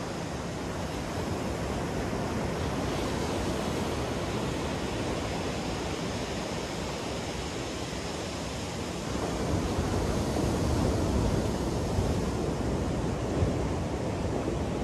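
Ocean surf washing onto a sandy beach, a steady rush of breaking waves that swells a little louder about two-thirds of the way through.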